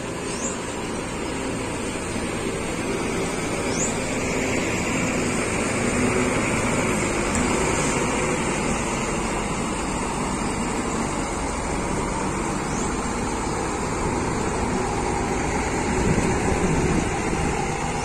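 Diesel bus engines running steadily, a continuous low rumble that swells briefly near the end as one engine changes pitch.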